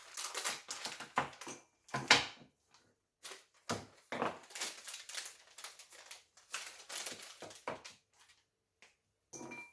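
White chocolate bars being snapped by hand into small pieces: an irregular run of sharp cracks and clicks in quick clusters, with short pauses between breaks.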